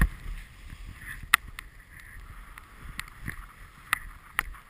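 Snowboard sliding through powder, heard through a GoPro: a steady hiss of the board in the snow with several sharp knocks and clicks. The loudest knocks come at the start and about a second in.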